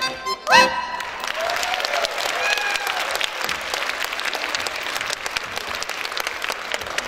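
An accordion-accompanied folk song ends with a short, loud rising vocal whoop about half a second in. An audience then applauds steadily, with a few cheers over the clapping early on.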